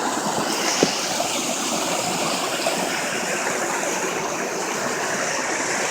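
Steady rush of running stream water, with a single brief tap just under a second in.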